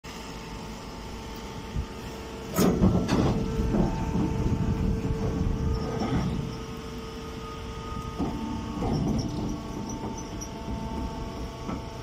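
Hydraulic straw baler's power unit humming steadily. Louder irregular clattering and rustling comes about two and a half seconds in and again around eight to nine seconds in.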